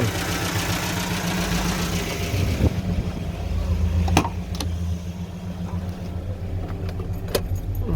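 GAZelle's Evotech 2.7 four-cylinder petrol engine, converted to run on gas, running with the hood open. It is busier for about the first three seconds, then settles to a steady idle with a tapping knock from the top end. The knock sounds like a hydraulic lifter, but the owner puts it at 50-50 on a valve seat tapping, with heads worn out at 238,000 km.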